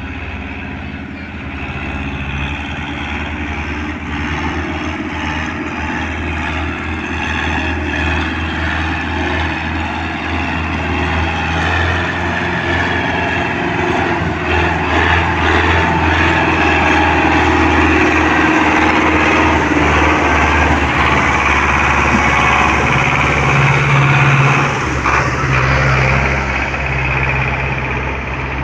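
Diesel farm tractor running under load as it hauls a heavily loaded sugarcane trailer past, its engine growing steadily louder as it approaches and easing off slightly near the end.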